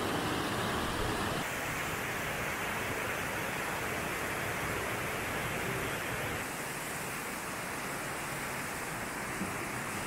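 A waterfall and river rapids rushing steadily, a dense, even roar of falling and churning water. Its tone shifts slightly about a second and a half in and again a little past the middle.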